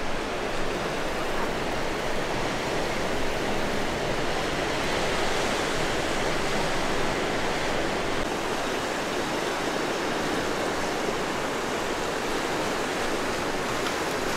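Sea waves breaking and washing over a rocky shore, a steady rushing noise without let-up.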